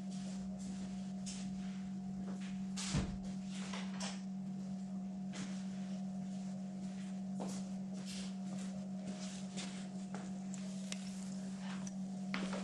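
A steady low hum with scattered clicks and knocks over it, the loudest about three seconds in.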